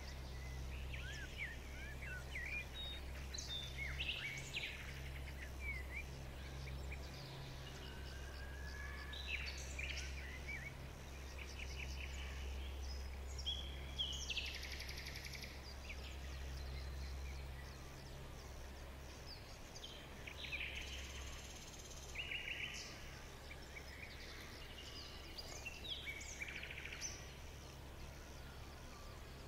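Several small birds chirping and trilling, with short calls scattered throughout, over a steady low hum that eases a little past halfway.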